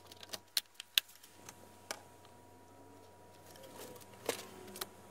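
Sharp clicks and taps as a laptop's bottom cover is pressed down onto the chassis and its clips snap into place: a quick cluster in the first second, one more about two seconds in, and two near the end.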